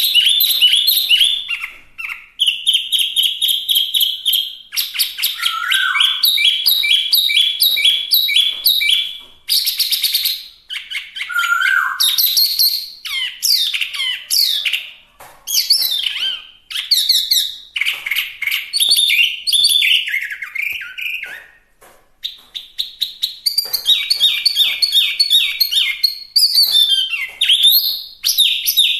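Hwamei singing vigorously: long runs of fast repeated whistled notes, trills and varied sliding phrases, broken by short pauses about 2, 9, 15 and 22 seconds in.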